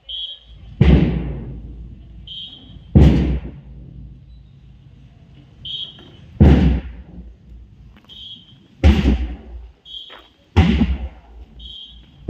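Rhythmic drill cue: a short high tone followed by a loud booming thud, about every two to three seconds.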